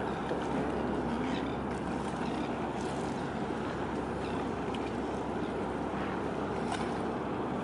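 Steady harbour ambience: a low, even engine rumble from ship traffic under wind and water noise.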